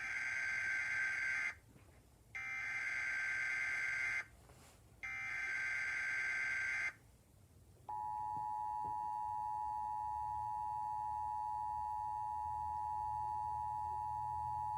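Emergency Alert System header: three bursts of SAME digital data tones, each under two seconds long, followed about 8 seconds in by the steady two-tone EAS attention signal.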